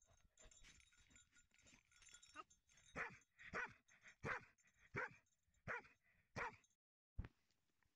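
A dog close to the microphone, first scuffling through snow, then giving about seven short, loud panting huffs a little under a second apart. A single sharp knock follows near the end.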